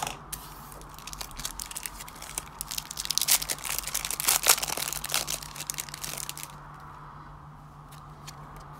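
Foil wrapper of a trading card pack being torn open and crinkled by hand, loudest about halfway through and stopping about two-thirds of the way in, with a few light clicks near the end.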